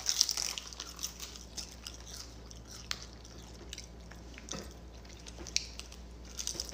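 Crunching and chewing of a crisp roasted-seaweed snack: scattered small crackly clicks, thickest in the first second and then sparse.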